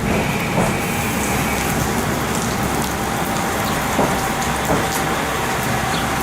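KiHa 40 diesel railcar running, heard through a fully open window: a steady rush of wind and wheel-on-rail noise. A faint steady whine runs under it, with a few light clicks.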